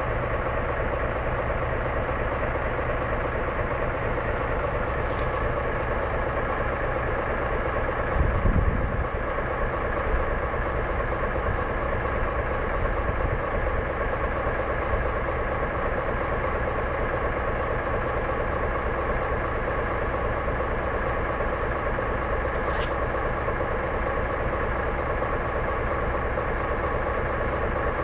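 Steady rumble of a steam train moving slowly, with one heavy low thump about eight seconds in.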